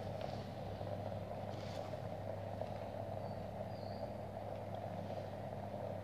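Electric facial steamer running and making steam: a steady electrical hum with an even low hiss.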